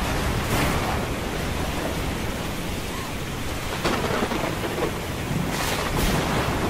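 Storm sound effects: steady heavy rain with low rumbling thunder, swelling briefly a few times.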